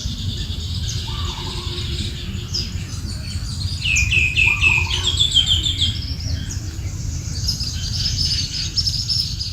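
Several wild birds chirping and singing together, with a loud run of quick downward-sweeping notes about four seconds in, over a steady low rumble.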